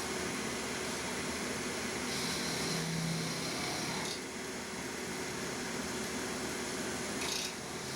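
Wood lathe running with a steady hum and hiss, dipping briefly about four seconds in and again near the end.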